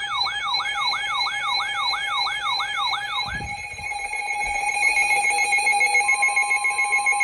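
Electronic emergency alert tones. A siren-like whooping tone, about three sweeps a second, stops about three and a half seconds in. What remains are steady electronic tones with a fast, stepped warble like an EAS data header, and a further steady tone comes in near the end.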